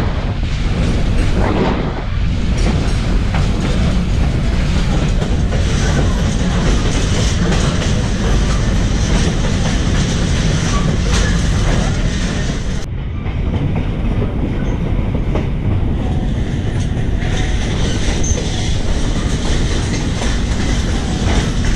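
A passenger train rolling along the track, heard from an open-sided railcar: a steady low rumble with wheels clicking over rail joints.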